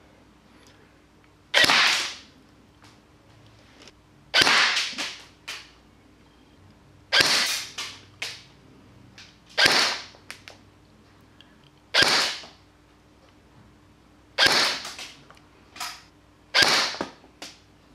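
G&G GR4 G26 pneumatic-blowback airsoft electric gun firing single semi-auto shots through a chronograph. Seven sharp cracks come about every two and a half seconds, each with a short rattling tail.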